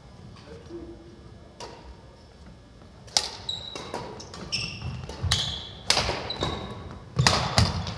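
Badminton rally: rackets smacking the shuttlecock about six times, with sneakers squeaking on the wooden court between hits. The hits come faster and louder in the second half.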